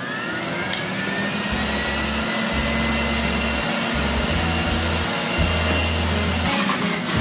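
Electric centrifugal juicer running, its motor whine rising as it comes up to speed at the start and then holding steady while kale is pushed down the feed chute, the low churning changing as the greens are ground.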